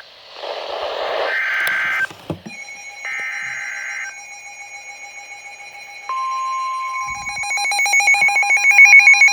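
Emergency Alert System tornado warning tones. Screechy digital SAME header bursts come first. About six seconds in, the steady 1050 Hz weather radio alert tone starts. Near the end it is joined by a fast pulsing beep that grows louder.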